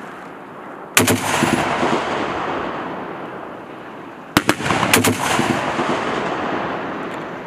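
M2 .50-caliber heavy machine gun firing short bursts. There is one about a second in, a single shot at about four and a half seconds, and another short burst just after five seconds. Each report is followed by a long rolling echo that fades over several seconds.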